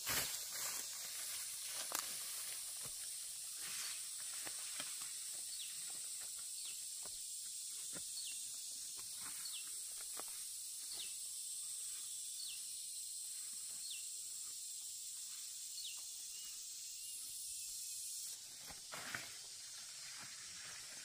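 Steady high-pitched hiss of an insect chorus on a brushy hillside, with rustling and snapping of ferns and leaves as a person pushes through the undergrowth in the first few seconds. From about four seconds in, a short high falling chirp repeats roughly every three quarters of a second for about twelve seconds.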